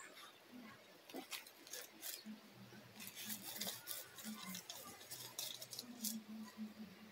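Dry leaf litter and grass rustling and crackling in quick, irregular bursts as small dogs dig and dash through undergrowth.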